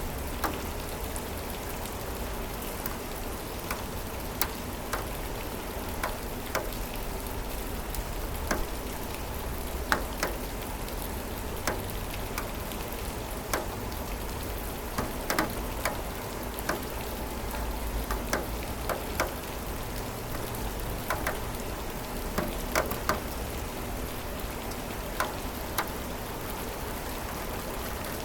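Steady rain falling, with individual drops ticking sharply on a nearby surface at irregular moments.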